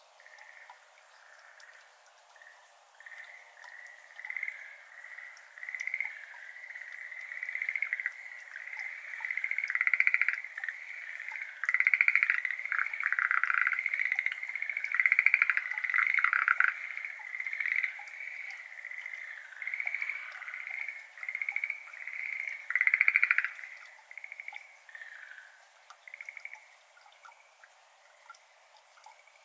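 Schlegel's green tree frogs calling, bouts of rapid trilled croaks that overlap and build over several seconds, loudest in the middle, then die away about 25 seconds in.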